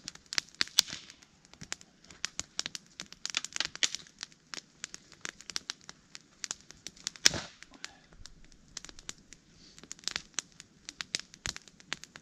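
Small campfire of damp winter twigs and birch crackling, with irregular sharp snaps and one louder pop about seven seconds in.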